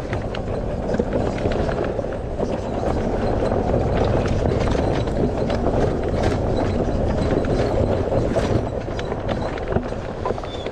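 Wind rushing over the microphone, with fat ATV tyres crunching and ticking over a rocky dirt trail as an electric four-wheel-hub-motor ATV creeps uphill. No engine note is heard: the hub motors run almost silently.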